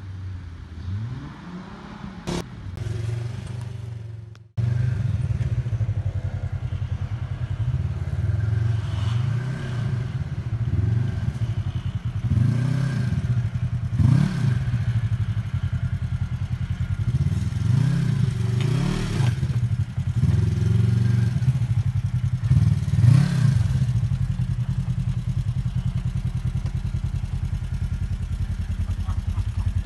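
Off-road side-by-side buggy engine running close by. It is throttled up and down several times in short rises and falls, as when crawling over rough ground. The sound is quieter at first and jumps abruptly louder about four seconds in.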